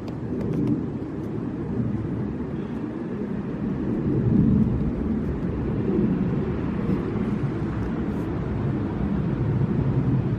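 Keihan Electric Railway train running past, a steady low rumble that grows gradually louder.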